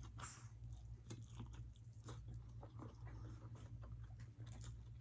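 A person chewing food close to the microphone: quiet, irregular mouth clicks and smacks with soft crunches, over a steady low hum.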